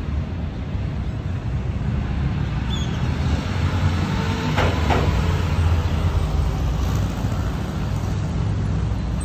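Street traffic: a steady low rumble of passing vehicles that swells a little around the middle, with two short clicks about halfway through.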